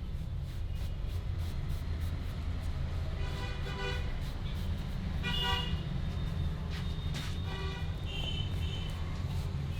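Vehicle horns honking three times, the middle honk the loudest, over a steady low rumble.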